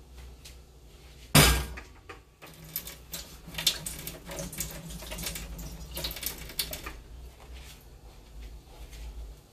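A single sharp bang about a second in, followed by several seconds of rapid clicking and clattering that dies down near the end.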